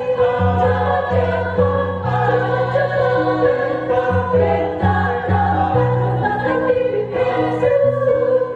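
A choir singing in harmony, holding chords over a low bass line that steps to a new note every half second to a second.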